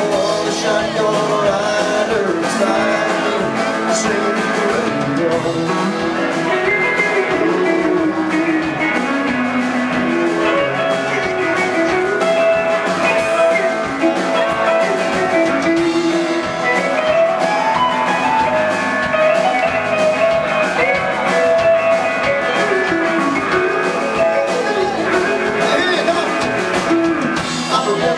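Live country-rock band playing: electric guitars, bass, drum kit and a steel guitar, with notes sliding in pitch.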